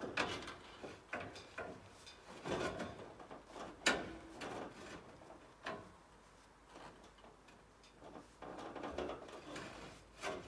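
Irregular scrapes, rubs and light knocks, spaced out with short gaps; the sharpest knock comes about four seconds in.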